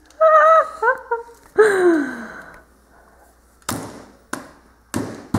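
A high voice exclaiming, then a falling vocal groan. From the middle on come four short thunks about half a second apart: a small pumpkin-carving tool being jabbed into a pumpkin's shell.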